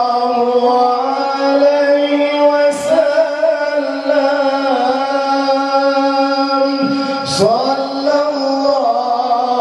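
Men singing a sholawat, an Islamic devotional song praising the Prophet, in duet through handheld microphones. The notes are long, held and ornamented. The phrase breaks off about 3 s in and again about 7 s in, and each time a new phrase starts.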